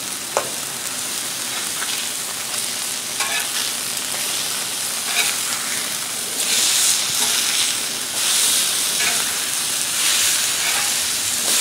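Pork loin chops sizzling on a hot Blackstone flat-top griddle as they are turned with a metal spatula. The sizzle swells a few times in the second half as the chops are flipped, and there is a short click of the spatula near the start.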